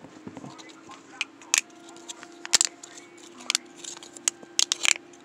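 Irregular sharp clicks and taps of small plastic fidget toys being handled, about eight in a few seconds, over a faint steady hum.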